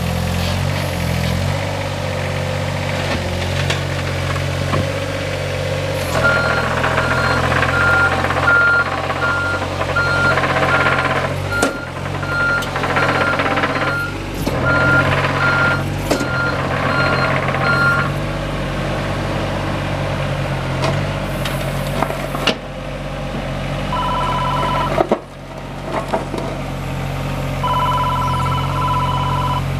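John Deere 26G compact excavator's diesel engine running steadily under hydraulic work. From about six seconds in to about eighteen seconds its travel alarm beeps a little more than once a second as the machine tracks. Near the end a steady higher whine sounds twice, for a second or two each time.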